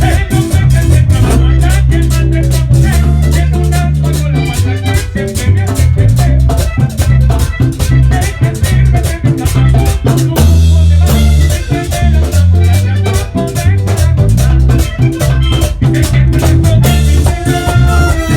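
Vallenato music: an accordion plays a melodic run over bass and a steady percussion beat.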